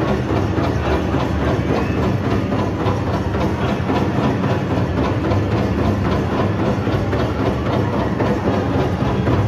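Powwow drum group playing a fast, steady beat for the men's fancy dance.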